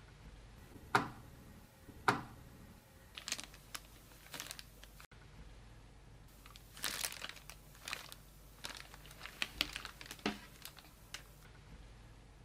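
Packaging being handled during an unboxing: two sharp knocks about a second apart, then bursts of crinkling and rustling with small clicks.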